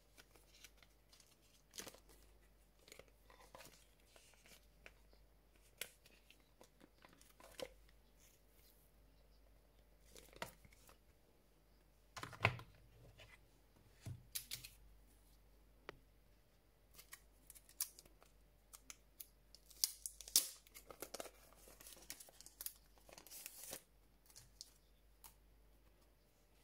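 Faint handling noise of album contents: a clear plastic sleeve crinkling and glossy photocards and cardboard rustling and tapping, in a scatter of short sounds that are loudest about halfway through and again about three quarters of the way in.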